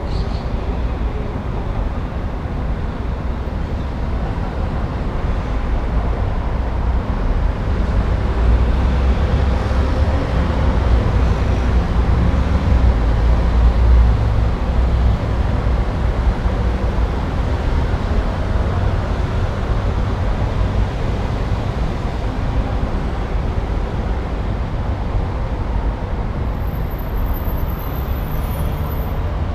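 City street traffic: a continuous low rumble of cars and buses, swelling louder for several seconds about halfway through as heavier traffic passes. A faint thin high whine shows near the end.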